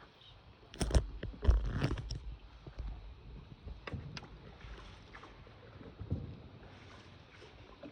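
A cluster of sharp knocks and heavy thumps about a second in, then a few fainter clicks over a low rumble.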